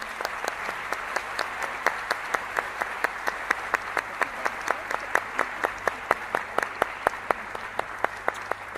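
Audience applauding steadily. One nearby pair of hands claps sharply and evenly, about four claps a second, over the massed clapping.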